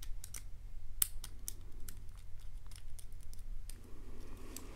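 Light, irregular metallic clicks and ticks of a lock pick probing the pin stacks of a Kwikset-keyway lock cylinder held under tension, searching for a pin that will still set while the lock stays shut.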